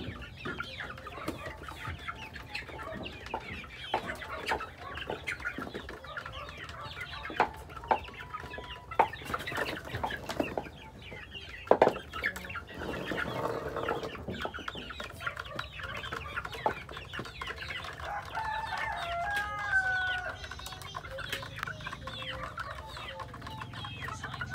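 A small flock of chickens clucking while they feed, with many sharp taps and clicks and a few louder knocks among them, the loudest about twelve seconds in. A few short, wavering calls come near the end.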